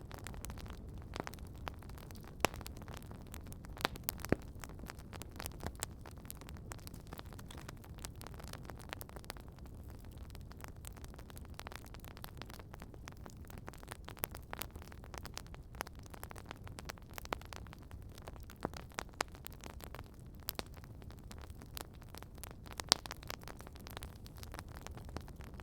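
Campfire crackling: irregular sharp pops and snaps over a low steady rumble, with a few louder snaps standing out.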